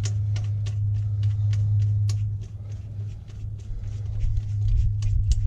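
Light metallic clicks and taps, a few a second, as a bolt is fitted and started by hand into a bracket on an engine, over a steady low hum.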